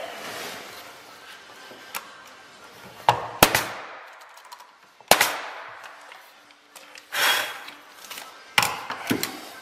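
Bostitch pneumatic finish nailer firing nails into wooden shoe molding. About five sharp cracks: two close together about three seconds in, one at about five seconds, and two near the end. A short rush of noise comes about seven seconds in.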